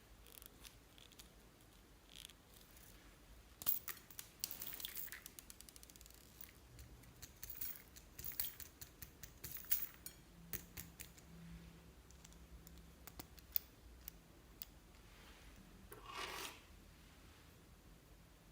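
Glossy slime being worked and mixed by hand, giving runs of sharp sticky clicks and crackles, with a short rush of noise near the end.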